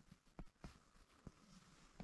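Near silence, with a few faint short clicks spread through.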